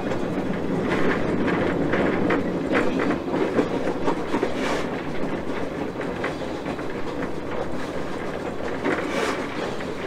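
A 1920 switcher steam locomotive rolling along the track, heard from its front pilot: a steady rumbling run with wheels clicking over rail joints, two sharper clacks about five and nine seconds in.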